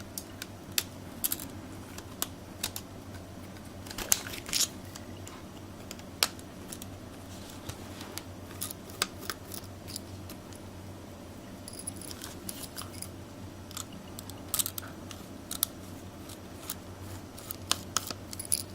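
Irregular light clicks and taps of small hard objects being handled, a few of them sharper, over a steady low hum.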